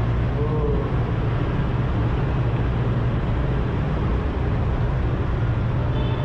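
Motor scooters and motorcycles running in a steady low rumble inside a road underpass, heard from among the traffic.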